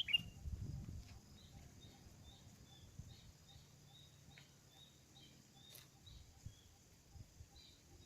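Sooty-headed bulbul (kutilang) used as a lure bird, calling in a faint series of short, high chirps, about two or three a second, after one louder chirp at the start.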